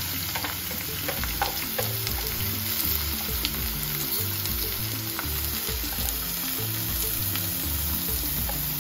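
Chopped onions frying in hot oil in a steel kadai with a steady sizzle, under background music with a low bass line.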